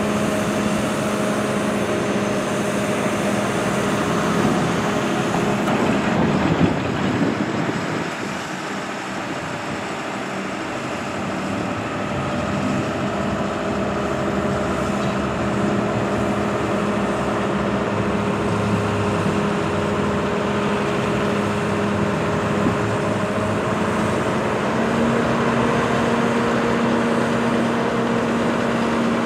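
JCB 510-56 telehandler's engine running steadily with a constant tone while the telescopic boom is retracted and lowered. A rush of noise comes about six seconds in with a brief dip in level, and the engine note steps up slightly near the end.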